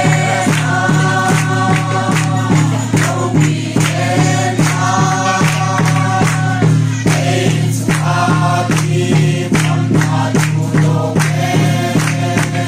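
Group of men and women singing a hymn together in chorus, with hand-clapping keeping a quick, steady beat.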